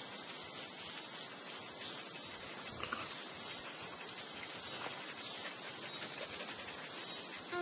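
A steady high-pitched outdoor hiss, with a couple of faint short sounds about three and five seconds in.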